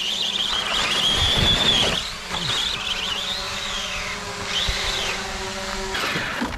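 Traxxas Slash RC truck's electric motor whining, rising and falling in pitch as the throttle is worked, over a steady lower hum. The battery is almost flat.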